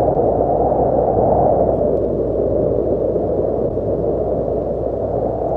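Strong wind of a haboob dust storm buffeting the microphone: a loud, continuous rushing rumble with no let-up.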